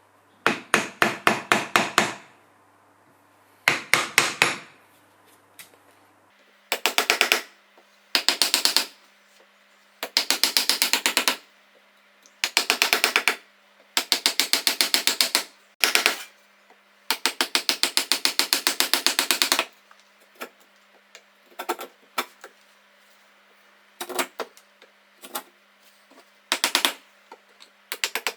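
Hammer tapping in quick runs of sharp strikes, several a second, each run lasting from about half a second to two and a half seconds with short pauses between. Lighter, scattered taps follow in the last third.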